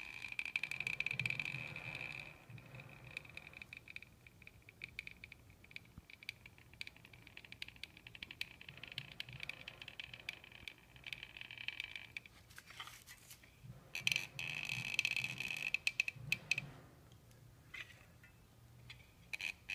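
Caulking gun dispensing construction adhesive onto foam board: scattered faint clicks and rattles from the gun's trigger and plunger rod, with louder handling noise about two-thirds of the way through.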